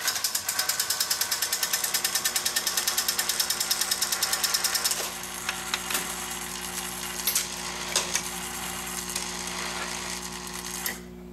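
Wurlitzer 2700 jukebox's record-changing mechanism running after a selection. About five seconds of rapid, even clicking, roughly nine a second, as the changer arm travels looking for the selected pin. Then a steadier mechanical run with a few sharp clicks over a steady hum, stopping near the end as the record is set on the turntable to play.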